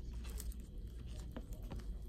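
Faint clicks and rustles of a nitrile-gloved hand handling the battery pull tab and the electric screwdriver, over a low steady hum.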